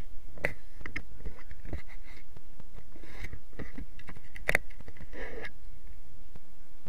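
Irregular knocks, taps and scrapes close to the microphone as a baby's hands grab and bump the camera, with a sharper knock about four and a half seconds in.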